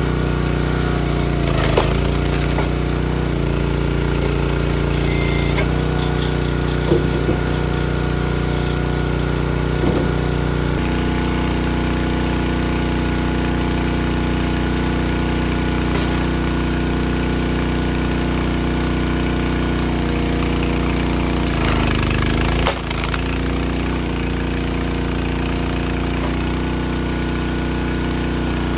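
Skid-steer loader engine running steadily while it works a pile, with a few sharp knocks in the first third. Its note steps to a new pitch about a third of the way through, and about three-quarters of the way through it dips briefly and recovers.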